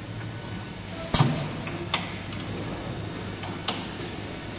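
NER3D-3 3D CNC wire bending machine at work bending metal wire: a steady low machine hum with a few sharp clicks from the bending head, the loudest about a second in.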